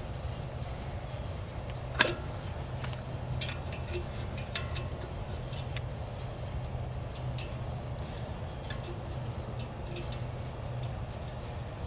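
Scattered metal clicks and clinks from a hand wrench working the bolts on a post hole digger's frame and gearbox, with one sharp clink about two seconds in, over a steady low hum.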